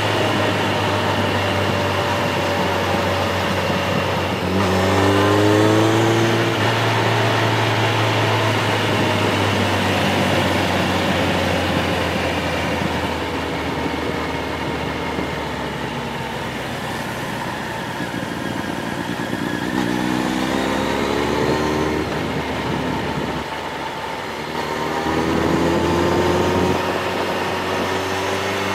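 A motor vehicle's engine running on a downhill drive, its revs rising briefly three times: about five seconds in, around twenty seconds and again around twenty-five seconds.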